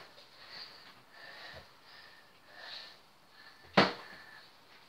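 A flipped bottle landing with a single sharp thud about four seconds in, amid faint sniffing breaths.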